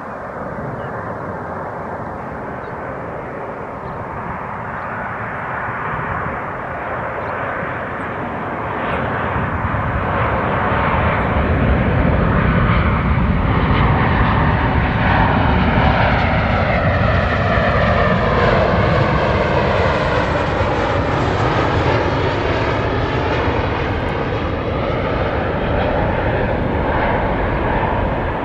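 Jet engines of a Boeing 737 airliner on final approach, growing louder for the first ten seconds or so as it comes in, then staying loud with a sweeping, shifting rush as it passes close by.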